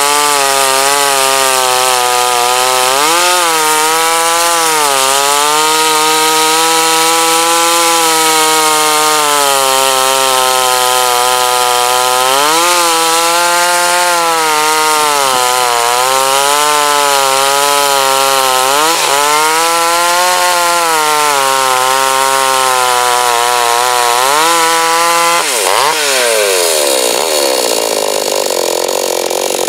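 Gasoline chainsaw running at high revs while cutting wood, its pitch sagging and recovering several times as the chain takes load. Near the end the revs fall sharply and the engine drops to a lower, rougher run.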